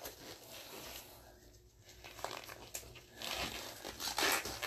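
Quiet rustling and handling noise with no words, growing louder in the last second and a half.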